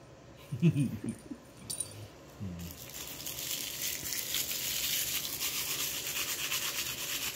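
A person sneezes once about half a second in, with a smaller voiced sound about two and a half seconds in. Then comes a steady scratchy rubbing against carpet pile for the last five seconds.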